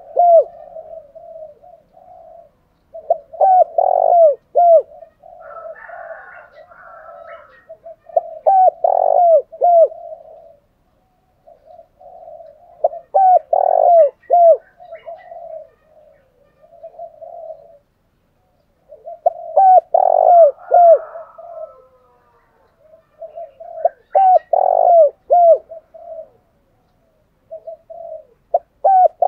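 Spotted doves cooing in short, rhythmic bouts of repeated notes about every four to five seconds: the male's bow-coo and calling songs, played as a lure to set a kept dove calling.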